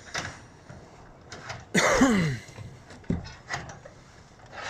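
Light knocks and clicks of work on a standing-seam metal roof panel, with a loud, short sound about two seconds in whose pitch falls.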